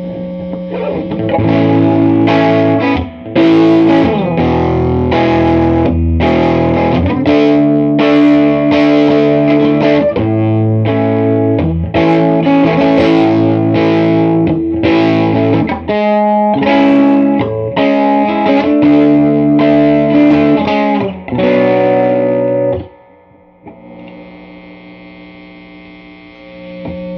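Electric guitar (Telecaster) chords strummed loud through a Crate Vintage Club 50 (VC5212) tube combo amp, its clean channel at volume 8 with reverb. Near the end the playing stops and only the amp's steady hiss and hum are left.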